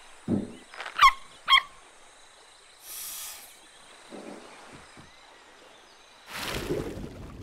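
Cartoon sound effects: two short, high squeaks, each falling in pitch, about half a second apart, followed by a brief hiss and a longer noisy swish near the end.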